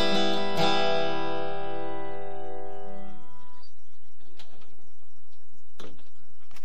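Steel-string acoustic guitar: a final strummed chord about half a second in, left to ring and dying away over about three seconds. Near the end there is a short soft knock.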